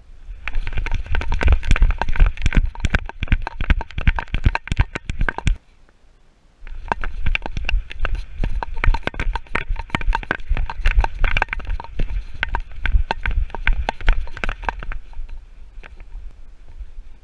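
Action camera strapped to a running dog's back, knocking and rattling on every stride, with rumbling buffeting on the microphone. The jostling stops for about a second partway through, then picks up again and dies down near the end.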